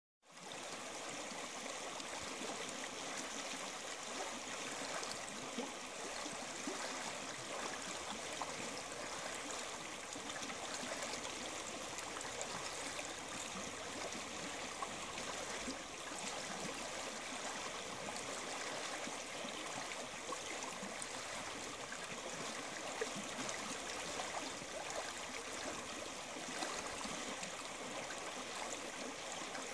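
Shallow mountain creek running over a stony, gravel bed: a steady, even rush of moving water, mostly high and hissy with little low rumble.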